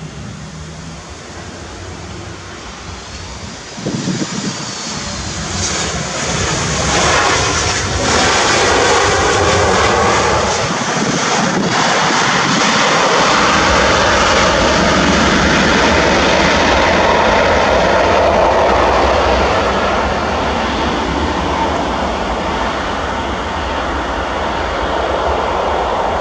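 Boeing 737-8 MAX jet engines during landing and rollout: the jet noise swells from about four seconds in to a loud, steady roar that holds for some fifteen seconds, then slowly eases as the airliner rolls away down the runway.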